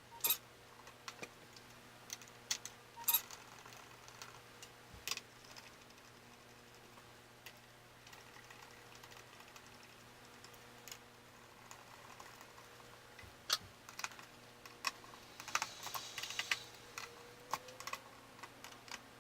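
Scattered light clicks and taps from hands handling computer parts and packaging, with a stretch of rustling around three-quarters of the way through, over a faint steady electrical hum.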